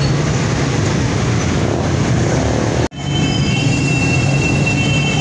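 Busy street noise with a steady rumble of traffic and engines. It cuts out for a moment about three seconds in, then returns with a steady high whine on top.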